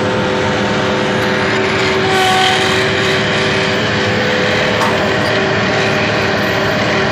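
Compact loader's engine running steadily at a constant speed, heard from the operator's seat, with a steady whine on top.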